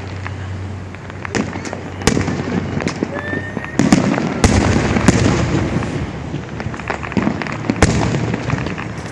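Aerial fireworks going off: a string of sharp bangs and crackles, thickest and loudest about four to five seconds in.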